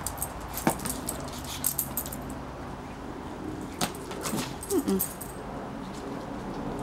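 Boxer dog playing with a ball on stone paving: scattered clicks and knocks from the ball striking the pavers and the dog's claws on the stone, with light collar jingling. A brief whine comes just before five seconds in.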